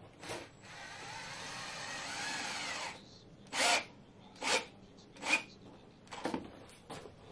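Cordless drill-driver driving screws into the wooden chine of a boat hull: a steady motor whine for about two and a half seconds, then four short trigger bursts as screws are run home.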